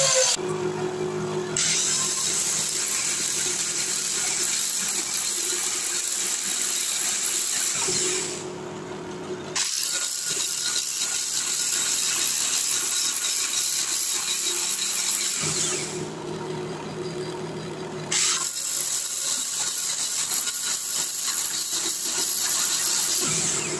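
Bench grinder running, its wheel grinding the tip of a thin steel rod to an awl point with a loud high hiss. The hiss drops away twice for a second or two while the motor hum carries on.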